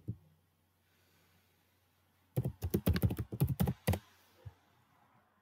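Computer keyboard typing: a rapid run of keystrokes lasting about a second and a half in the middle, with one more lone tap shortly after.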